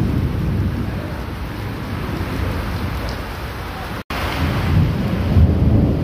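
Heavy tropical rain pouring steadily onto a paved courtyard, under a low rolling rumble of thunder that swells again in the second half. The sound cuts out completely for an instant a little after four seconds.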